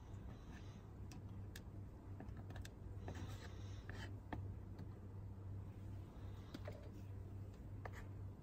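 Lit charcoal in a small stainless folding grill, faint irregular clicks and ticks over a low steady hum.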